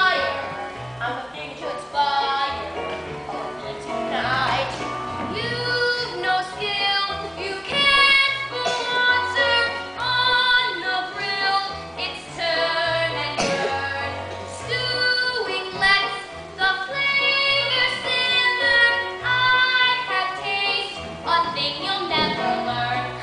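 A young cast singing a show tune over instrumental accompaniment, with a bass line moving underneath the voices.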